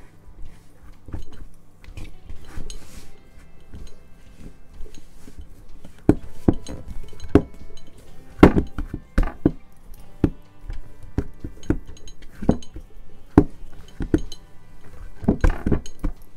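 Mixing bowl knocking and clinking against the tabletop as sticky bread dough is worked by hand inside it. The knocks come irregularly, sparse at first and then more often and louder from about six seconds in.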